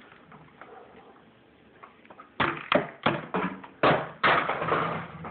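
A quick run of sharp knocks and taps on a tabletop, about seven in two and a half seconds, starting about two seconds in after a quiet start.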